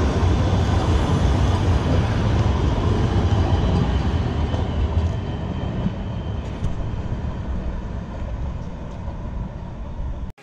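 A two-car light rail train passing close on street-running track, a low rumble that slowly fades as the train moves away.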